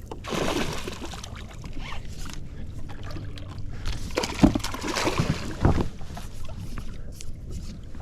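Water splashing and handling noise as a hooked bass is landed into a boat, with two sharp knocks about four and a half and five and a half seconds in.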